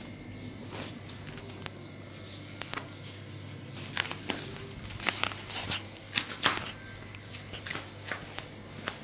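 Clothing rustling and the soft scuffs and knocks of knees, feet and hands shifting on a foam yoga mat as a massage therapist moves around a client. The sounds bunch together from about four to seven seconds in, over a faint steady hum.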